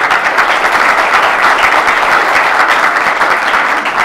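An audience in a lecture hall applauding steadily: many people clapping at once.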